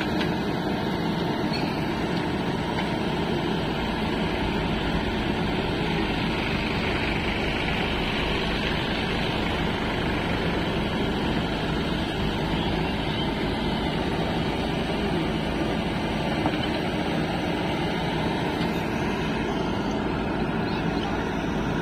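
JCB 3DX backhoe loader's diesel engine running steadily while its arm digs and scoops wet mud.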